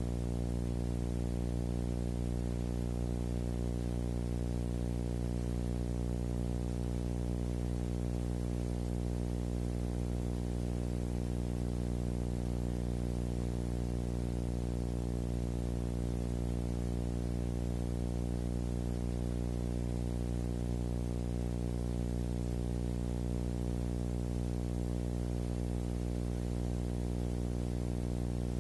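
A steady, unchanging buzzing hum with hiss over it; it never varies and carries no street sounds or crash.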